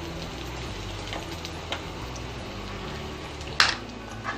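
Stuffed bitter gourds shallow-frying in oil in a kadai: a steady sizzle with faint scattered crackles. A sharp knock sounds about three and a half seconds in, and a lighter one just before the end.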